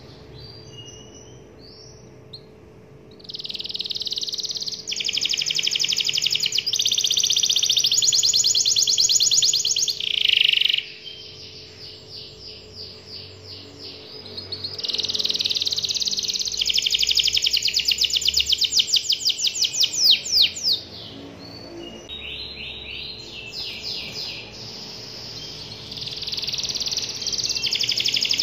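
Domestic canary singing long, rapid trills in phrases several seconds long, with short pauses and softer twittering between them.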